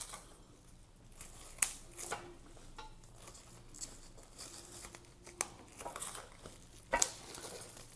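Bubble wrap crinkling and rustling as it is handled and pulled off metal brackets, with several sharp crackles.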